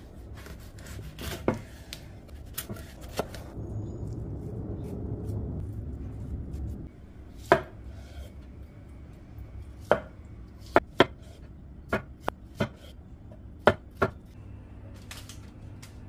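Kitchen knife cutting dragon fruit on a wooden cutting board: irregular sharp knocks of the blade meeting the board, coming closer together in the second half, with a few seconds of duller, continuous cutting noise in the middle.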